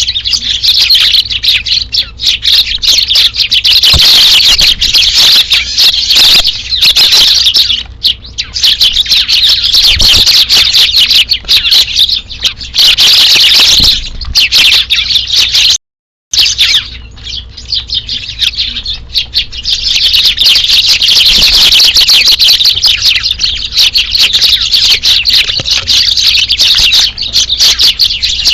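A flock of Eurasian tree sparrows chirping loudly and constantly, many calls overlapping. The sound cuts out completely for about half a second around the middle.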